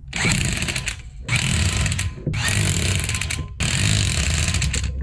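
Chicago Electric corded electric impact wrench hammering lug nuts onto a car wheel, in four bursts of about a second each with short pauses between as it moves from nut to nut.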